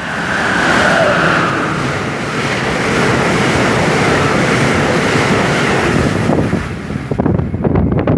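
An Amtrak passenger train led by an ACS-64 electric locomotive rushes through the station at speed without stopping, making a loud, steady rush of wheels and air. Near the end, as the last car clears, the sound breaks into choppy gusts.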